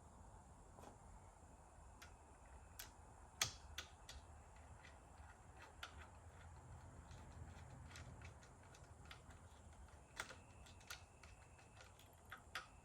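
Faint, scattered clicks and taps of small metal hardware and a socket being handled while bolting down a trolling motor mount, with the sharpest tap about three and a half seconds in.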